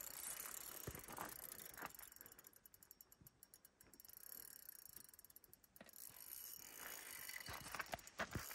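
Fishing reel being cranked, its gears giving a faint, rapid clicking.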